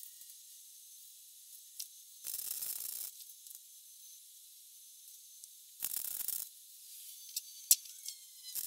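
MIG welder laying short tack welds on a patch in a rusted car speaker tray: two crackling, sizzling bursts of the arc, each under a second, a few seconds apart. A sharp click comes near the end.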